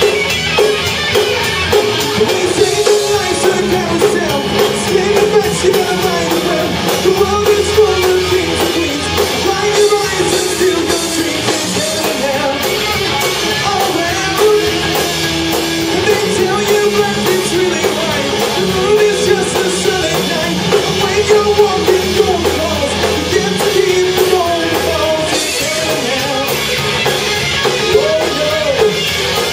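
Live rock band playing: a male lead singer over electric guitar, bass guitar and drum kit.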